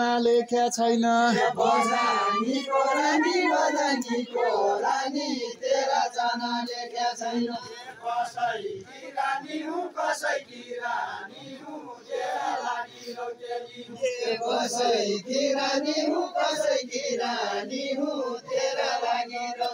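A group of Deuda dancers singing a Deuda folk song together in long, held phrases.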